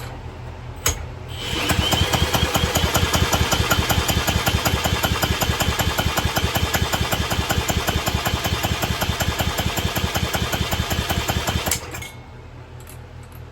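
Small 3.75 HP Briggs & Stratton pressure-washer engine spun over by an electric drill on brake cleaner, with fast even pulsing under a high drill whine, for about ten seconds. It then cuts off suddenly without the engine taking over and running.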